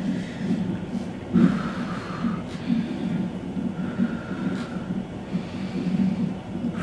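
A woman in labour breathing heavily through the pain, with two long breaths out, over a steady low hum.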